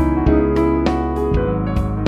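Background piano music, with notes struck every half second or so over sustained bass notes.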